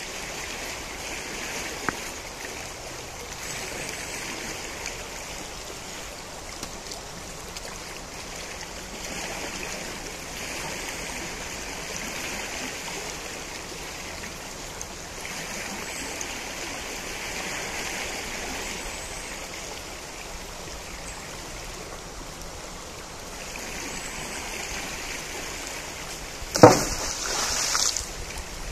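The Najerilla river flowing: a steady rush of running water. About two seconds before the end there is a sudden loud thump, followed by a short noisy rush.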